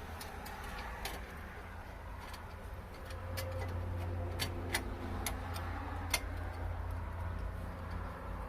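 Scattered light clicks and ticks of small parts being handled while wiring a light fixture, over a low steady hum that gets louder about three seconds in.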